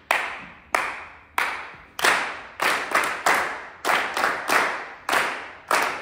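A group of people clapping in unison, beating out the ta-ti-ti rhythm said to underlie most Greek songs. Steady claps alternate with runs of quicker ones, and each clap rings on in a large hall.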